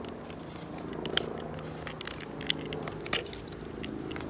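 Light clicks and knocks from a plastic cap and pipe fittings being handled, over a steady machine hum.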